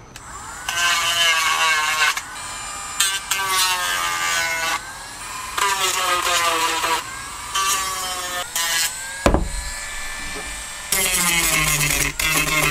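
Dremel rotary tool running in several short bursts, its whine bending up and down in pitch as it grinds and sands the cut end of a PVC pipe.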